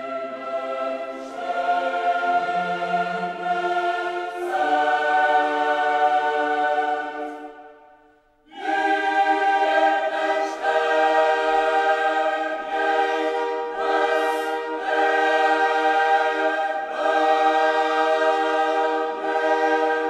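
Background choral music: a choir singing long, held chords, which fade away about seven seconds in and come back in about a second later.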